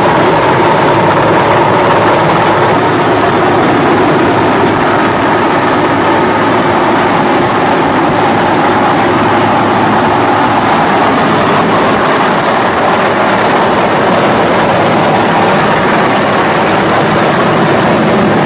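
Helicopter engine and rotor noise heard from inside the cabin during a winch rescue, loud and steady throughout.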